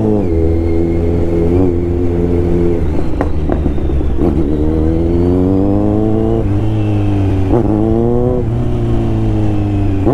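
Kawasaki Z900's inline-four engine under way, held steady and then accelerating, its pitch rising and dropping back sharply at two upshifts in the second half.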